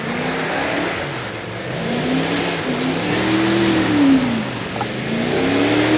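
Lifted 4x4 pickup truck's engine revving hard as it is driven through mud and water, the pitch climbing and falling back twice over a steady hiss.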